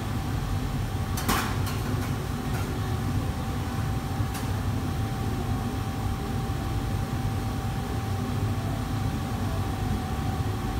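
Steady low roar of a commercial kitchen's wok range and exhaust hood running, with a faint steady whine over it. A few light metal clinks come in the first few seconds.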